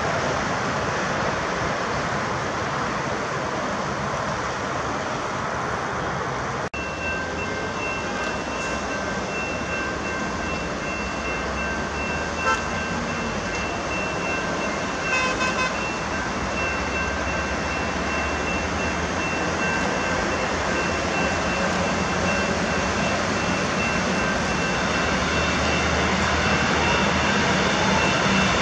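Steady roar of road traffic, with a double-deck passenger train approaching along the line and growing louder near the end.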